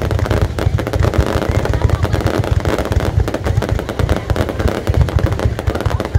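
Fireworks display going at full intensity: a dense, rapid, unbroken crackling and banging of many shells bursting at once, over a heavy low rumble.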